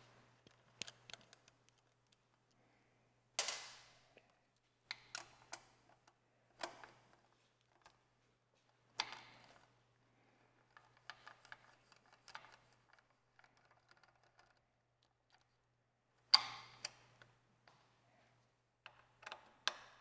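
Scattered metallic clicks and taps of hex keys and a T-handle hex driver on motorcycle bolts and frame parts, with a few louder clinks that ring briefly.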